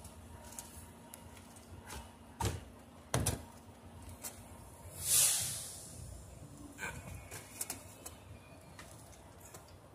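Scattered clicks and knocks of plastic and metal parts as a dishwasher's pump-and-motor assembly is handled and pried apart by hand. A brief hiss-like rush about five seconds in is the loudest sound.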